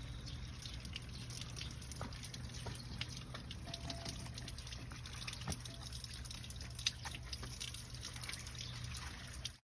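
Water dripping and trickling off an air conditioner's outdoor unit after it has been rinsed, with irregular drops ticking over a low steady hum. The sound cuts off abruptly near the end.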